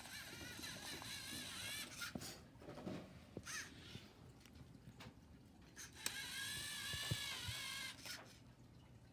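A LEGO Mindstorms robot puppy's small built-in speaker plays two long, wavering cries of about two seconds each, with a short yip between them.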